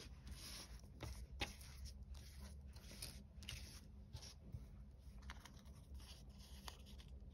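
Faint rustling and crinkling of paper stickers being handled, with soft scattered clicks, as fingers pick at a sticker's edge to start peeling the backing off.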